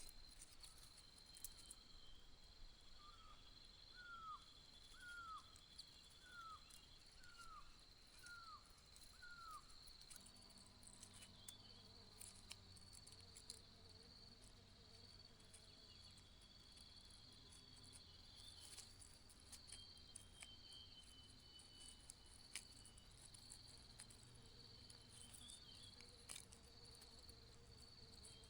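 Faint, steady trilling of insects in the background. Over it, a bird gives a run of about seven short downslurred whistles, about one a second, in the first third.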